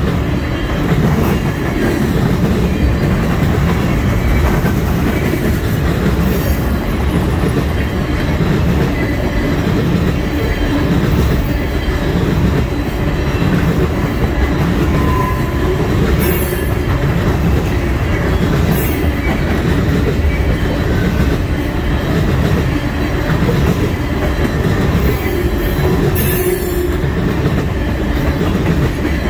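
Tank cars of a freight oil train rolling past on the rails: a steady loud rumble of wheels on track with a rhythmic clickety-clack as the trucks go by. A few brief high-pitched flashes of wheel noise cut in.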